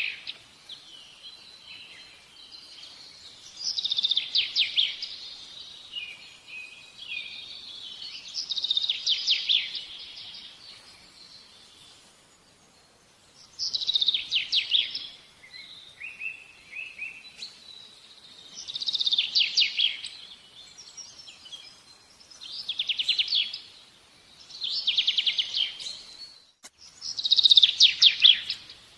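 A bird singing: short, rapidly trilled song phrases, each about a second long, repeated every four to five seconds.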